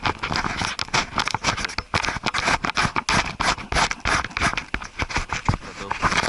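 Dense, irregular scratching, crackling and tapping right on the microphone, many small hits a second with no steady rhythm.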